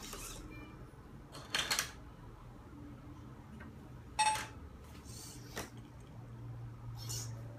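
Servo motors of a desktop robotic arm whirring in short bursts as the arm moves, over a steady low hum, with a sharp clack about four seconds in.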